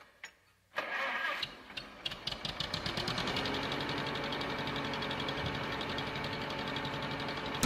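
A couple of short clicks, then an engine cranking unevenly for about two seconds before it catches and settles into a steady, evenly pulsing idle.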